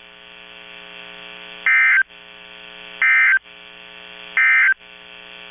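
Emergency Alert System end-of-message code: three short, loud electronic data bursts, each about a third of a second and a little over a second apart, signalling the end of the alert. A steady electrical buzz runs underneath.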